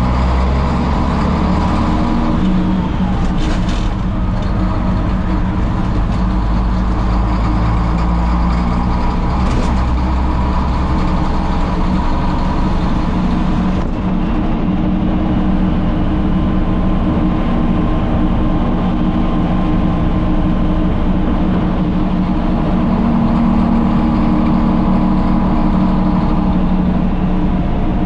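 A 1962 Peterbilt's straight-piped Caterpillar diesel engine running steadily as the truck drives along, its exhaust note low and constant.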